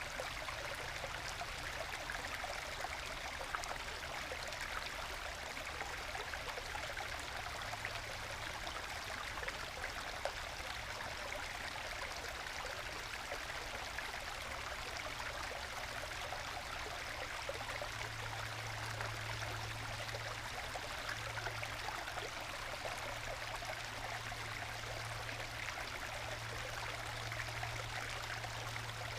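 Small forest stream babbling and gurgling as it trickles over little waterfalls worn into bedrock and into small plunge pools, a steady, gentle flow.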